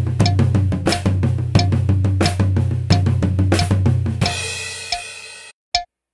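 Acoustic drum kit playing a single-paradiddle groove split between floor tom, high tom and snare, with bass drum underneath. About four seconds in the groove ends on a cymbal crash that rings and fades, then cuts off suddenly, followed by one short click just before the end.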